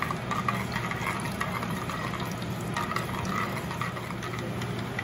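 Mustard and fenugreek seeds sizzling in hot coconut oil in an earthen pot, with scattered small crackles as the seeds begin to pop, while a steel spoon stirs them.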